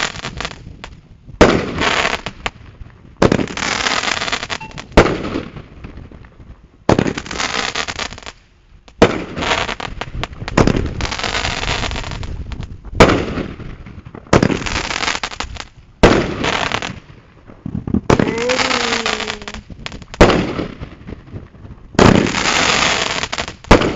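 Fireworks going off one after another, about every one to two seconds. Each starts with a sharp bang and trails into about a second of crackling hiss.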